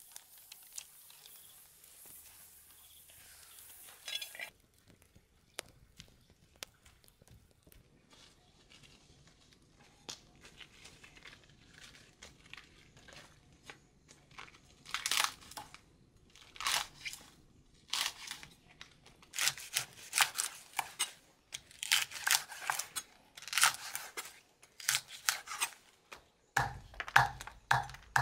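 At first, hands faintly squelch and rub leaves in a pot of water. Then long pandan leaves are slit and torn in repeated rustling, ripping strokes. Near the end, a cleaver chops them on a wooden chopping block in quick thumping strokes.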